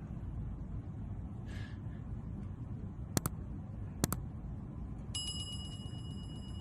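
A rapid bell-like ringing trill lasting about two seconds near the end, preceded by two sharp double clicks, over a steady low hum.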